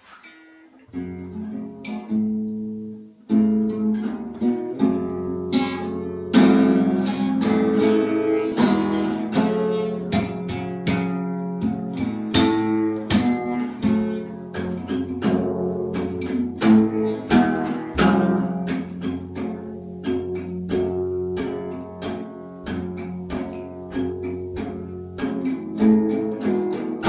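Acoustic guitar playing the instrumental intro of a song, strummed chords in a steady rhythm, soft at first and fuller from about three seconds in.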